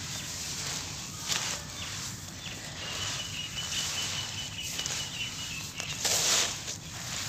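Bare hands scooping, squeezing and crumbling a dry, lumpy sand-cement and soil mixture, giving a gritty crunching and rustling with the loudest crunch about six seconds in.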